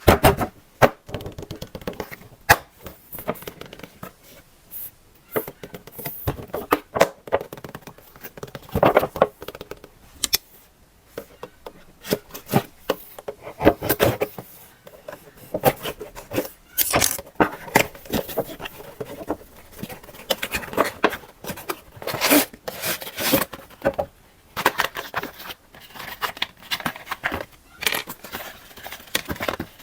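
Packaging being handled and opened by hand: irregular tearing, scraping and crinkling of cardboard and plastic, with sharp clicks.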